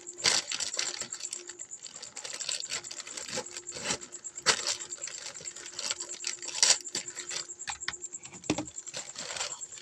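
A mail-order parcel's packaging being worked open by hand: irregular crinkling, scraping and clicking, with a few louder bursts.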